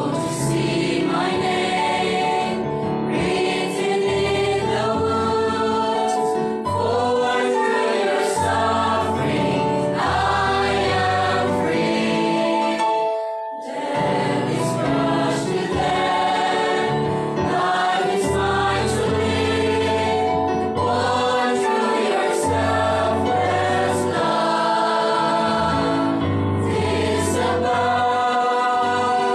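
Mixed choir singing a gospel hymn, with a short break between phrases about halfway through.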